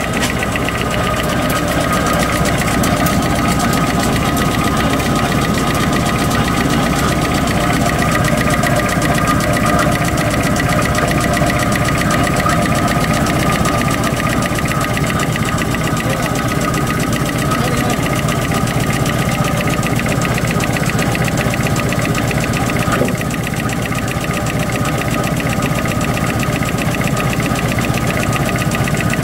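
Facial tissue folding machine running at production speed: a loud, steady, rapid mechanical clatter from its rolls and folding gear, with a steady whine over it. A single sharp click sounds about two-thirds of the way through.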